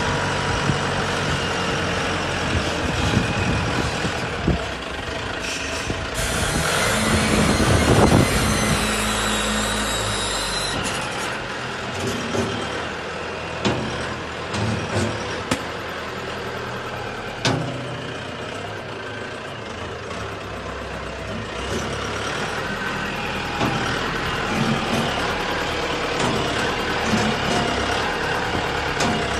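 Self-loading concrete pan mixer's diesel engine running and working the hydraulics for the loading hopper, with a loud hiss from about six to ten seconds in. A few sharp metal knocks follow.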